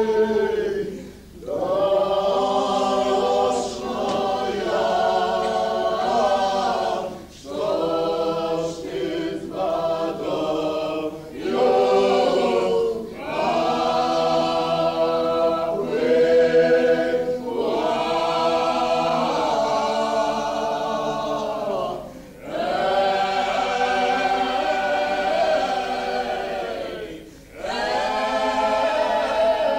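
A group of voices singing together without instruments, in long held phrases broken by short pauses for breath.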